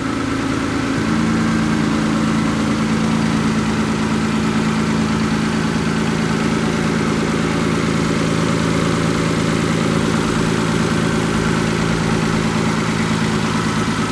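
Peugeot 107's 1.0-litre three-cylinder 12-valve petrol engine idling steadily, heard close up over the open engine bay.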